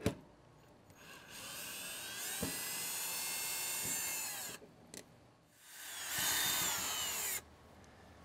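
Cordless drill/driver running twice, each time spinning up to a steady whine and winding down, backing out the screws of a junction box cover. A sharp click right at the start.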